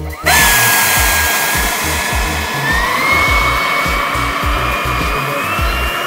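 Electric ducted fan of a model hydroplane spooling up suddenly to a high whine over rushing air. Its pitch steps up about three seconds in and keeps climbing as the boat speeds away.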